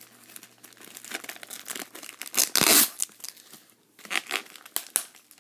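Packing tape being peeled and torn off a parcel, with crinkling of the packaging. One long, loud tear comes a little past the middle, and short crackles follow near the end.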